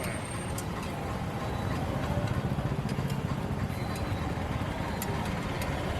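A steady low mechanical rumble with a pulsing texture, over scattered light clicks.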